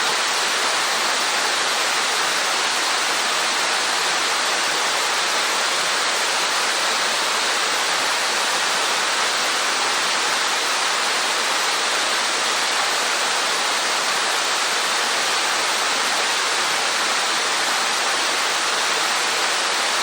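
Waterfall of about 15 m drop falling into its pool: a steady, even rush of water that does not change.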